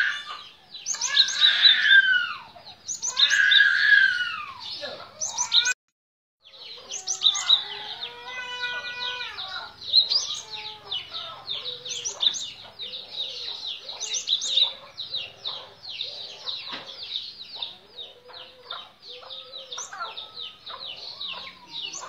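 Cinereous tit (gelatik batu) calling: loud sweeping calls for the first few seconds, a brief break, then a fast, continuous chatter of sharp notes.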